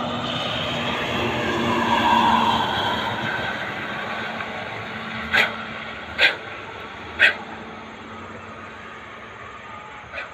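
A bus passing on the toll road below: tyre and engine noise with a low engine hum, swelling to a peak about two seconds in and then fading away. Three short sharp clicks stand out around the middle.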